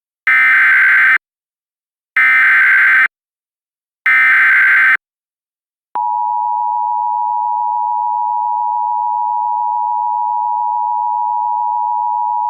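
Emergency Alert System alert tones: three one-second bursts of the SAME digital header, a second apart, then the two-tone attention signal (853 and 960 Hz sounded together) coming in about six seconds in and holding steady. The header bursts carry the coded severe thunderstorm warning that the voice message goes on to read out.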